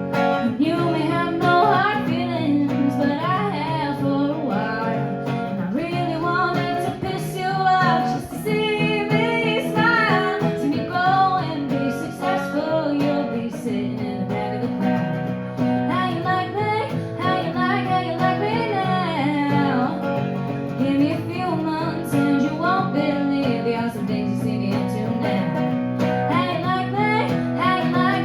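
Live country music: acoustic guitar strumming and picking, with a woman singing at times.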